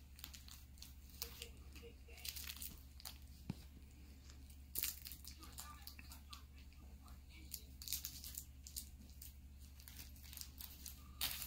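Dog chewing and tugging at a plush fabric toy: scattered scratchy tearing and crinkling noises in irregular bursts, over a steady low hum.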